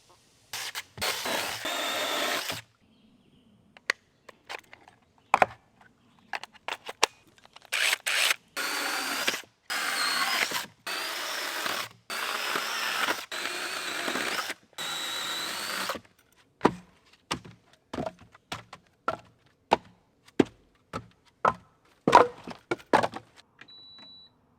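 Small battery-powered mini chainsaw cutting firewood in several bursts of one to two seconds, each starting and stopping abruptly. After these come a run of sharp wooden knocks and clacks as the cut pieces are handled.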